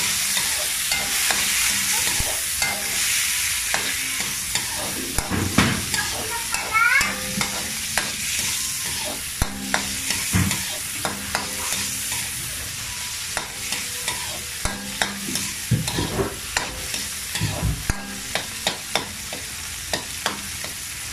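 Sliced onions and tomatoes sautéing in oil in a wok: a steady sizzle, with a metal spatula scraping and clicking against the pan many times as they are stirred.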